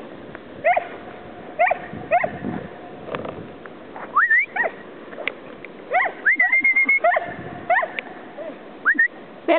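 Puppies yipping and whining in play: a string of short, rising yelps, with one longer high-pitched whine about six seconds in.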